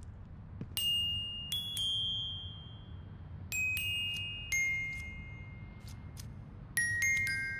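Sparse, high bell-like struck notes, each ringing and slowly fading. Single notes come a second or more apart, then a quick run of three near the end, mostly stepping down in pitch.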